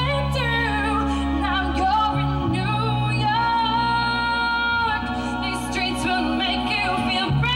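A woman singing a song into a handheld microphone over backing music of long, held bass notes. She holds one long, steady note in the middle.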